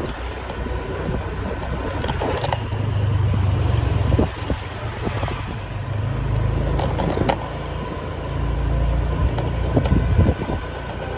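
Traffic on a town street heard from a moving bike: engines rumble, swelling and fading as vehicles pass, with wind buffeting the microphone and a few sharp knocks.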